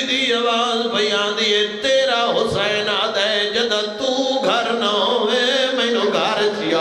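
A male zakir chanting a mourning lament for Karbala (masaib), one voice in long, drawn-out melodic lines with wavering, gliding pitch and short breaks between phrases.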